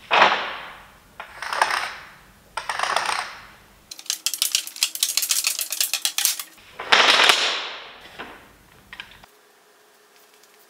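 Long milled hardwood strips sliding across a wooden bench top and against each other: three sliding swishes, then a fast run of clattering knocks as the boards tap together, then another long slide and a few last knocks as they are gathered into a stack.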